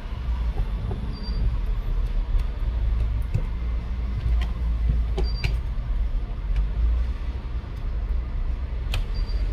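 A steady low rumble, with a handful of light clicks and taps from tools handling the phone during disassembly.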